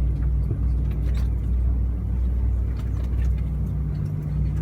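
Steady low drone inside an Airbus A320 passenger cabin on the ground, with a few faint clicks.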